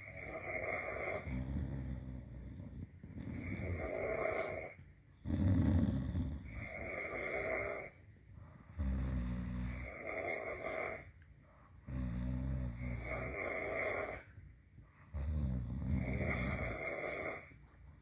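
People asleep snoring, a slow run of heavy snores each lasting two to three seconds, about six in all, with short quiet gaps between them.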